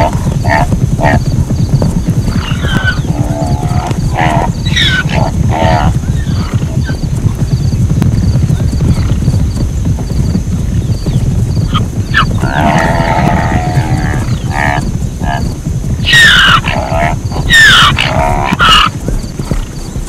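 Zebra calling: repeated barking, braying calls in bouts a few seconds apart. The loudest two come late and fall in pitch. A steady low rumble runs underneath.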